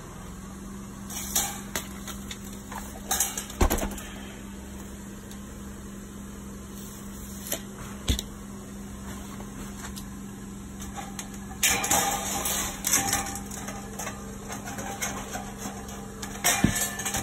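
Sheet-metal counter flashing being handled and cut: scattered sharp metallic knocks, the loudest a few seconds in, a stretch of scraping rattle about twelve seconds in, and quick clicks of tin snips cutting the sheet near the end, over a steady low hum.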